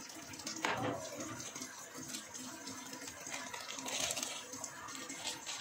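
A plastic packet crinkling and rustling as powdered flour is shaken out of it into a bowl, loudest about a second in and again around four seconds.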